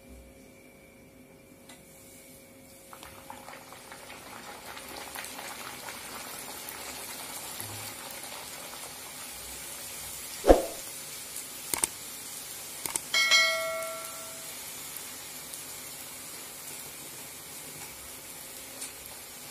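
Chola puri dough deep-frying in hot oil in a kadai: a sizzle starts about three seconds in, as the puri goes into the oil, and builds to a steady bubbling hiss. About halfway there is a single sharp knock, and a few seconds later a short ringing tone.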